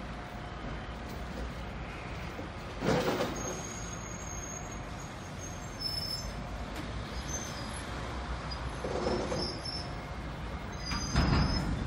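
Hydrogen fuel-cell electric tram running away along the rail track with a steady low rumble. A few short, louder bursts of noise come about three seconds in, near nine seconds and near the end, with faint brief high squeaks between them.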